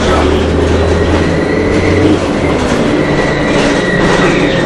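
Cabin ride noise of a 2007 Orion VII diesel-electric hybrid transit bus in motion. A low drone fades about two seconds in, and a thin, steady high whine runs over a dense, loud rumble and rattle.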